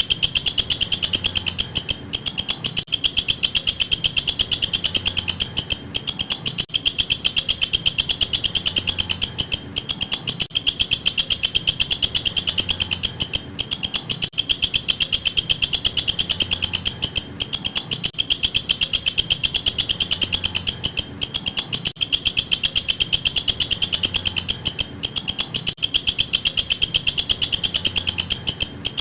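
Walang kecek katydid stridulating: a loud, high-pitched, rapidly pulsed buzz, broken by a short pause every three to four seconds.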